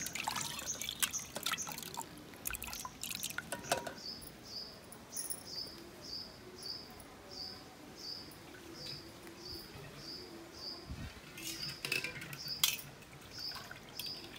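Water splashing and sloshing as a hand swishes peeled prawns around in a steel pot. Then a bird calls the same short high note over and over, about one and a half times a second, with a few sharp clicks near the end.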